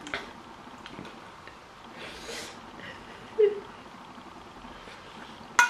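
Quiet eating sounds: a few sharp clicks of cutlery against a plate, the loudest near the end, with a short stretch of chewing about two seconds in and a brief 'mm' about three and a half seconds in.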